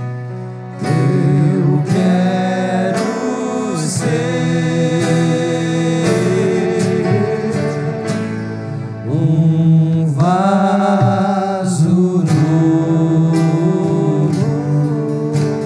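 Live worship band playing a slow gospel song, with singing over guitars, keyboard and bass.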